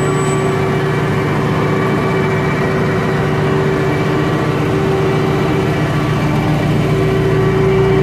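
A vehicle engine running steadily, a constant droning hum that gets a little louder near the end.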